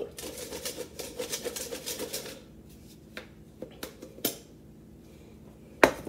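Plastic hand-crank flour sifter being turned, a rapid clicking rattle that stops about two seconds in. A few light clicks follow, then a single sharp knock near the end.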